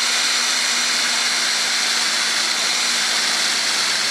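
Power drill running steadily at speed, a 4 mm metal drill bit boring a hole through the end of a metal curtain rail. The motor holds one even pitch throughout.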